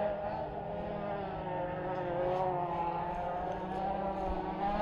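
A steady motor drone with several pitched layers that waver slowly up and down in pitch, like an engine running at a distance, with a few faint ticks about two seconds in.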